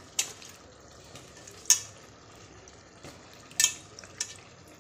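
Raw potato chunks being dropped into a pressure cooker of bean curry, landing in four short, sharp knocks, the second one the loudest.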